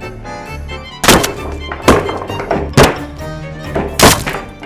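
Four heavy chopping thunks about a second apart: an axe blade striking a wooden cutting board as it cuts through carrots, over light background music.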